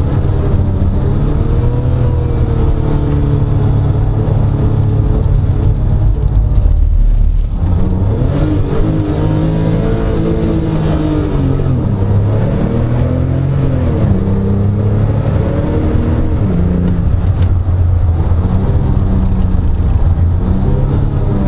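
Porsche 997 Turbo's twin-turbo flat-six heard from inside the cabin at track speed, its note climbing and falling repeatedly as the car accelerates, lifts off and shifts through the gears. There is a brief lift-off about a third of the way in.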